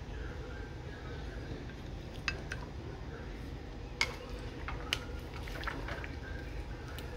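A serving spoon clinking and scraping against a glass baking dish and a plate as roasted sausage, peppers and potatoes are dished up. There are several sharp clinks, the loudest about four seconds in, with soft squishing of the food between them.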